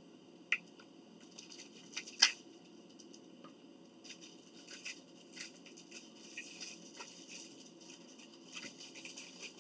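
Small eating noises: utensils clicking and scraping against dishes, with scattered light ticks and rustles. There are a few sharper clicks in the first couple of seconds, the loudest about two seconds in.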